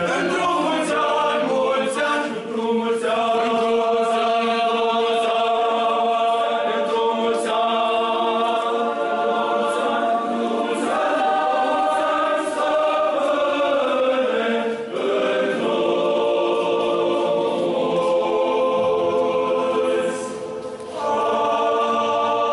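Choir singing Orthodox liturgical chant, several voices holding long notes together and moving to a new note every second or two, with a short break near the end.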